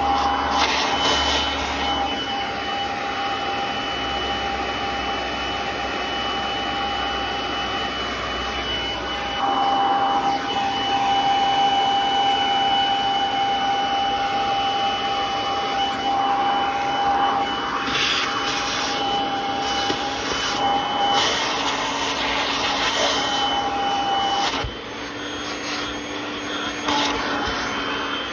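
Vacuum cleaner running with a steady high motor whine, its crevice nozzle sucking crumbs off car floor carpet. It gets louder about ten seconds in and drops back near the end.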